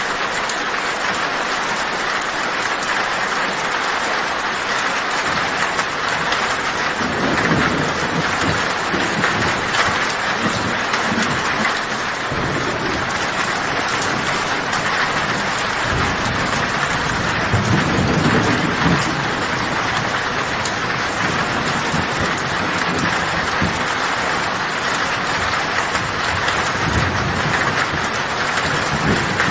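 Heavy rain falling steadily on a tin roof, with low thunder rumbling several times: about a quarter of the way in, near the middle, and longest a little after the middle.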